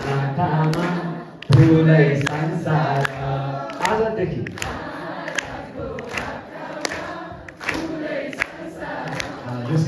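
A group of voices singing together, with sharp percussive strikes at uneven intervals.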